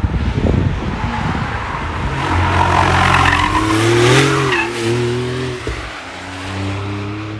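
Porsche 911's flat-six engine as the car comes down the track and passes close by. The engine note rises to its loudest, with tyre and road noise, about four seconds in, then bends in pitch as it goes past. After a short dip near six seconds, a steady engine note follows as it pulls away. Wind buffets the microphone at the start.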